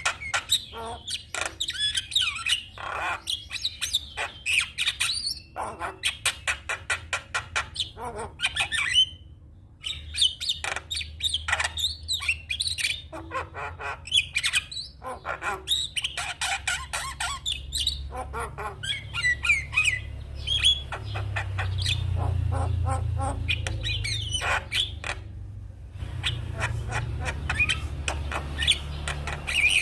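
Javan myna (jalak kebo) singing a long, rapid chattering song: fast runs of harsh clicking and squawking notes mixed with short whistles, broken by brief pauses. A low steady rumble runs underneath through the second half.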